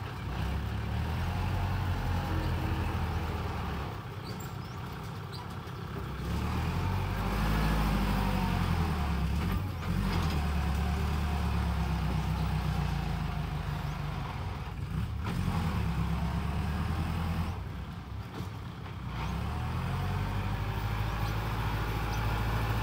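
Compact diesel tractor engine running under load while pulling a disc harrow through loose sandy soil, its note rising and falling with the throttle, most clearly about seven seconds in and again near the end.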